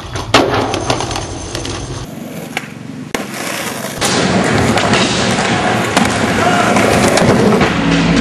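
Skateboard wheels rolling on concrete, with sharp clacks of the board hitting the ground: a loud one just after the start and another about three seconds in. From about four seconds in the rolling noise is steady and louder.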